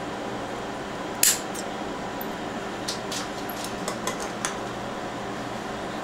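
Electrician's shears snipping at Cat5e cable wires with one sharp metallic click about a second in, followed by several lighter clicks and ticks of the wires and tool being handled, over a steady background hum.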